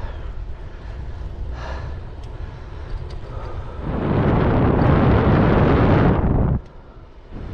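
Wind buffeting the microphone while riding, a steady low rumble, with a loud rushing gust about four seconds in that lasts two to three seconds and cuts off suddenly.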